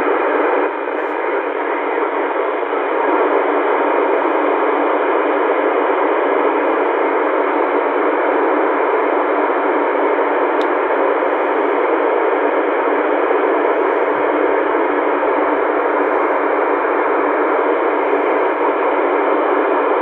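Yaesu FTdx10 transceiver in FM mode giving a steady rush of static with its squelch open and no station on frequency, as it is tuned up through the 10-metre FM segment.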